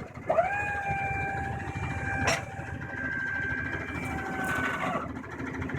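Electric hydraulic pump motor of a delivery truck's liftgate whining as it runs, rising briefly in pitch as it starts and then holding steady for about four and a half seconds before it stops. A sharp click comes about two seconds in.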